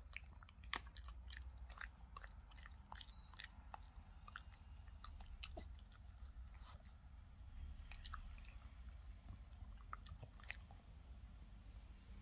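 Boston terrier gnawing and chewing on a chew-stick treat: faint, irregular clicks and crunches of teeth on the stick.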